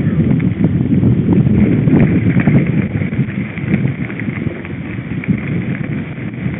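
Mountain bike rolling over a rough dirt track: wind on the microphone with a dense clatter of rattles and knocks from the bike and camera, quieter in the second half.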